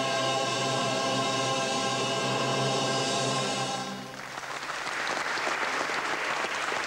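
Choir and orchestra holding a sustained final chord, which cuts off nearly four seconds in; audience applause starts straight after and goes on.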